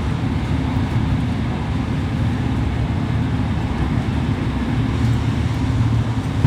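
Steady low rumble and running noise of a Finnish InterCity train, even throughout.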